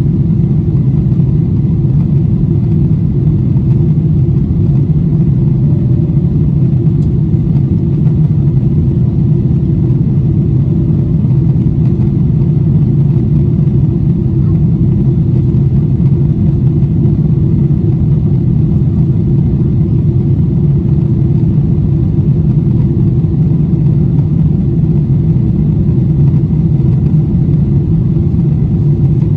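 Steady drone of a Boeing 747-8i's four GEnx-2B engines heard from inside the passenger cabin, a deep even hum that holds without rising or falling.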